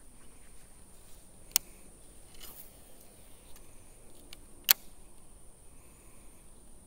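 Two sharp clicks about three seconds apart from the baitcasting reel as it is handled, over a faint steady high-pitched hum of insects.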